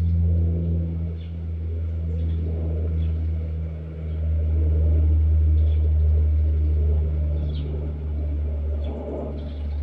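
A motor engine running steadily with a low, constant hum, with a few faint short high ticks above it.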